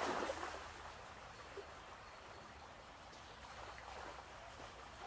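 Border collie splashing into a shallow stream, the splash dying away within the first half second. After that there is the steady rush of the stream, with a few faint splashes as the dog wades.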